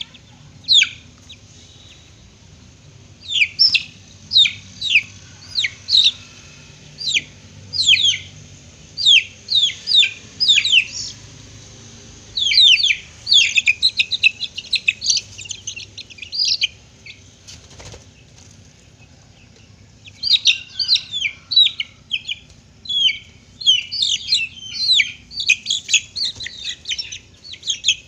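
Young aseel chickens peeping: runs of short, high chirps, each falling in pitch, with a pause of a few seconds past the middle.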